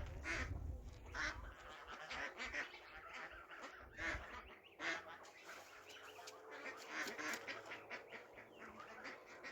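A series of short, repeated bird calls, faint, coming quicker about seven seconds in.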